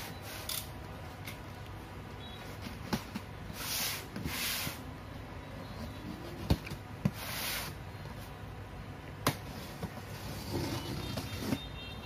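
A cardboard shipping box being opened by hand: packing tape slit and torn away in a few short rasping bursts, with cardboard rubbing and several sharp clicks and taps.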